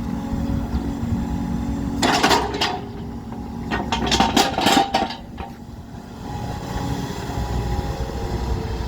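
Excavator engine running steadily, with a series of loud metallic clanks and scrapes about two seconds in and again from about four to five seconds in.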